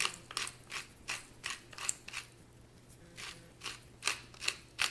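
Hand-twisted pepper mill grinding black peppercorns: a run of short crunching, grating strokes, about two to three a second, with a brief pause about halfway before the twisting starts again.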